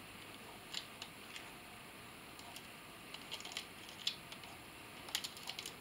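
Faint, scattered clicks and light taps of small airsoft gearbox parts being handled: a screw and the piston head picked up and fitted against the piston, with little clusters of clicks about three seconds in and near the end.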